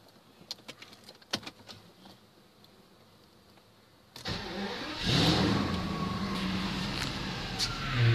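Mercedes-Benz W140 600SEL's V12 engine being cold-started. After a few faint clicks, the starter cranks briefly about four seconds in and the engine catches about a second later, then runs at a steady idle with a short rise in revs near the end.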